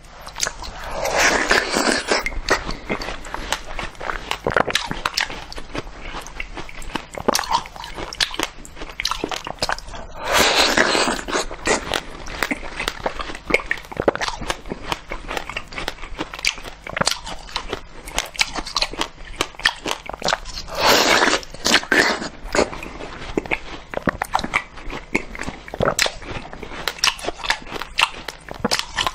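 Close-miked biting and chewing of a block of ice frozen in the shape of a water bottle. Three big crunching bites come about a second in, around ten seconds and around twenty-one seconds, with steady crackling chewing of the ice between them.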